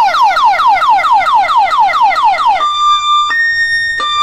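Loud electronic siren, most likely played over the sound-system rigs. It gives a fast repeating falling yelp, about five sweeps a second, and about two and a half seconds in switches to a two-tone hi-lo, alternating between a lower and a higher note.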